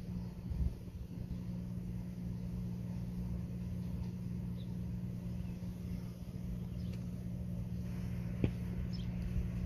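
Distant diesel locomotives of an approaching freight train, a steady low drone, with low wind rumble on the microphone and a few faint high chirps.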